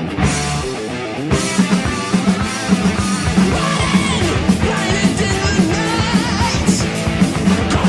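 Heavy metal song playing as a soundtrack, with guitar, a steady drum beat and singing.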